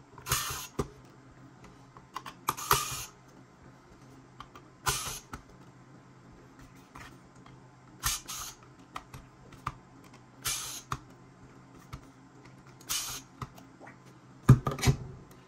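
Small screws being removed from the underside of a plastic computer mouse and the shell being opened: short scratchy clicks and rattles of screwdriver and plastic, about every two to three seconds, with a pair of sharper knocks near the end.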